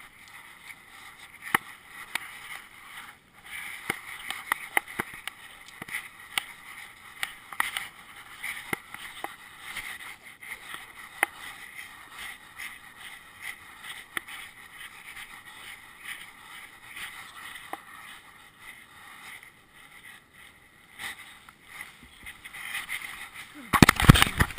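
Handling noise from an action camera strapped to a moving dog: a muffled, steady rubbing with scattered clicks and knocks, and a burst of louder knocking near the end.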